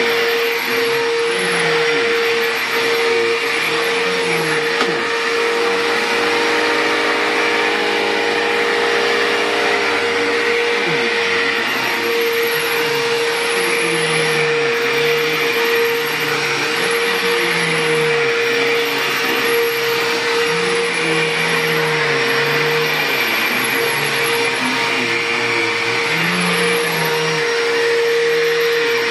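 2005 Bissell PowerTrak Revolution upright vacuum cleaner running steadily over carpet after a repair. Its motor holds one steady whine throughout.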